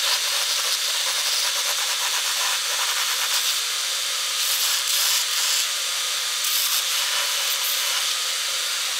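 Belt grinder running with a steady hiss while a small aluminium cam lever is held against the abrasive belt for rough shaping. The grinding grows louder in short stretches, about four to five and a half seconds in and again around seven seconds.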